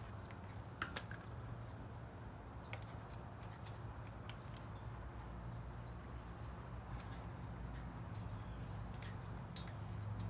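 Metal clinks and taps of a hand lug wrench working lug nuts onto a truck wheel's studs. The clicks are scattered and irregular, the sharpest about a second in, over a steady low hum.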